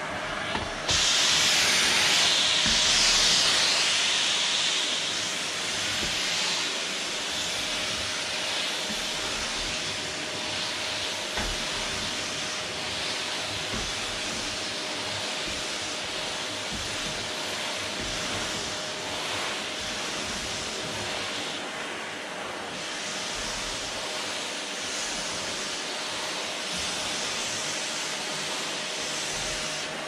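Canister vacuum cleaner running: a steady rushing hiss of suction over a constant motor whine, getting louder about a second in and easing back after a few seconds, as the floor nozzle works a wooden floor.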